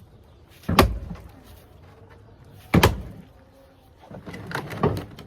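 Two heavy bangs about two seconds apart, then a quicker run of smaller knocks and rattles: parts of an old fiberglass hot tub being broken apart.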